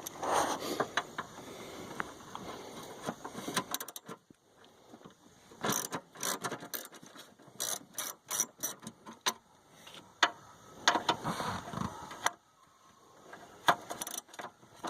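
Ratchet wrench with a 10 mm socket clicking in several short spells with pauses between, as the bolts holding a plate are turned out.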